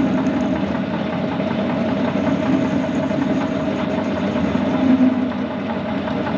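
Metal lathe running steadily while a light facing cut skims the end off a stainless steel bolt.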